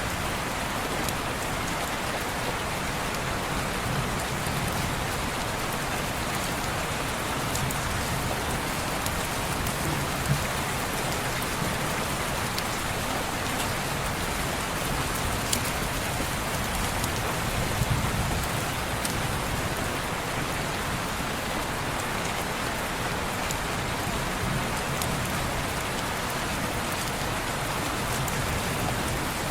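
Steady rain falling on window glass, a constant even hiss, with a few faint sharp ticks scattered through it.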